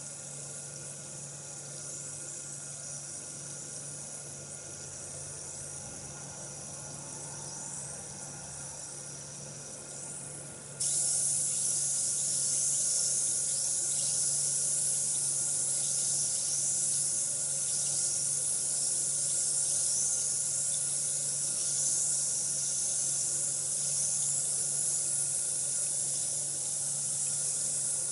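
Bath bomb fizzing in water, a steady crackling hiss that gets suddenly louder about eleven seconds in. A low steady hum runs underneath.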